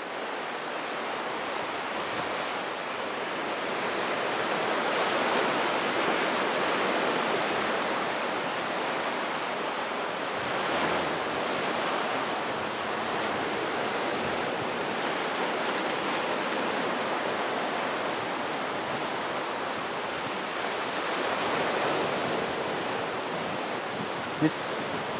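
Steady rushing sound of sea surf with no distinct breaks, swelling slowly and easing a few times.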